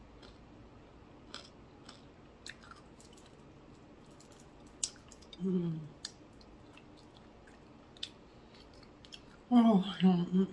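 Close-miked chewing of fried flounder: wet mouth clicks and smacks scattered through. A short low hum comes about halfway, and a brief stretch of voice near the end.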